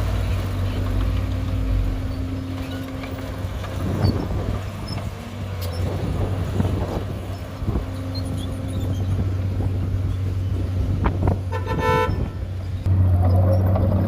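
Heavy diesel earthmoving machinery running steadily, with a short horn toot near the end and the engine getting louder just after it.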